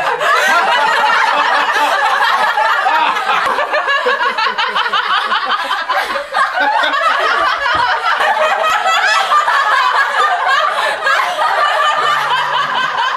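A group of young people laughing hard together, many voices overlapping in a continuous loud fit of laughter.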